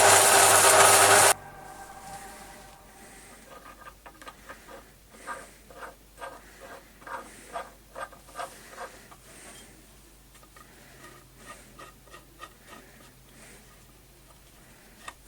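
A loud steady noise stops abruptly about a second in. Then come irregular clinks, scrapes and light knocks of metal pieces being handled and shifted, as in rummaging through workshop scrap for a metal plate. The clinks are busiest in the middle and thin out toward the end.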